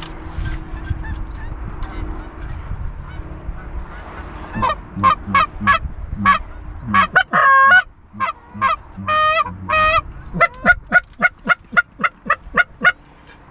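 Handheld goose call blown by a hunter: loud honks and clucks begin about four and a half seconds in, with two longer honks in the middle and a fast run of quick clucks near the end, calling to turn a circling Canada goose back.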